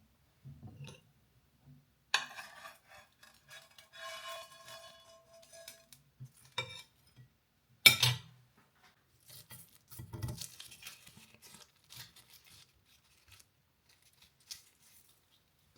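Dishes and glassware being handled. A clink about two seconds in rings on for a few seconds, a sharp knock comes near eight seconds in, and a run of small taps and clicks follows.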